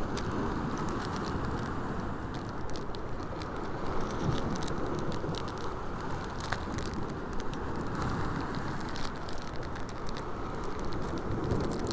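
Crinkling and crackling of a small plastic packet of fishing hooks being handled and opened, many small sharp clicks over a steady rushing outdoor background noise.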